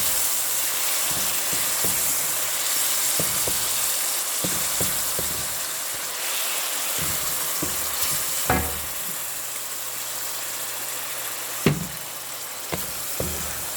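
Chicken strips sizzling in hot oil in a cooking pot, stirred with a utensil that knocks against the pot now and then, most sharply twice in the second half.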